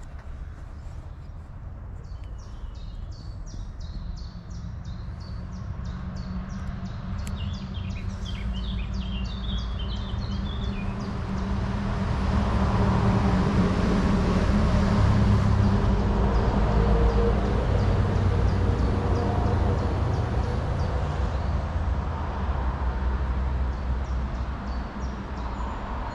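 Traffic on the main road beside the railway: a heavy vehicle's engine grows louder, passes at its loudest about halfway through, then fades. Birds chirp and tick during the first few seconds.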